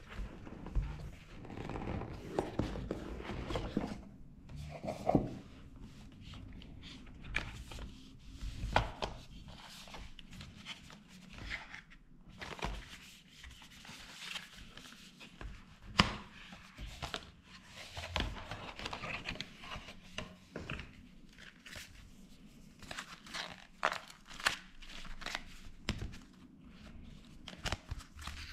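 Hands unpacking a smartphone's cardboard box: cardboard and paper inserts sliding and rustling, packaging crinkling, and scattered taps and knocks against the table, with one sharp knock about halfway through.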